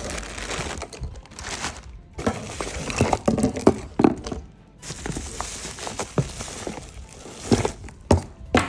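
Packaging being handled and opened: paper and plastic rustling and crinkling, with scattered knocks and clicks of a box and its contents being moved.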